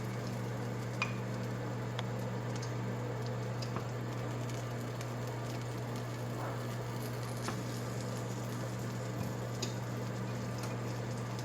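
Faint crackling and sizzling from the hot roasted cauliflower and its pan as melted butter is brushed on, with a few soft ticks, over a steady low hum.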